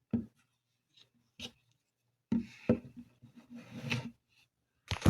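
Handling noise of a small compact camera in the hands: a few light clicks, then a couple of seconds of rubbing and scraping against the camera body, and a sharper click near the end.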